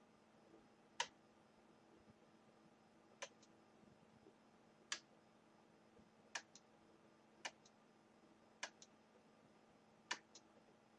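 Seven sharp clicks a second or two apart, most followed at once by a fainter second click, over near-silent room tone: a computer mouse button pressed and released, clicking through slides.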